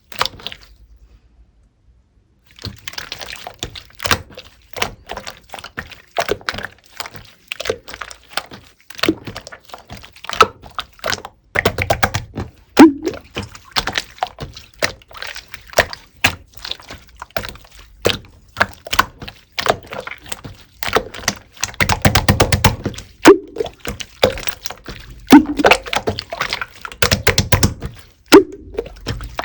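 Clear slime being squished and pressed by hand, making a dense run of wet clicks and pops, with a few heavier thuds as it is slapped or folded. It starts after a short silent pause at the beginning.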